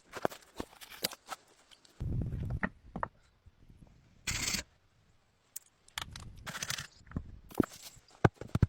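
Irregular knocks and clicks, with a few short bursts of noise in between: handling and working sounds.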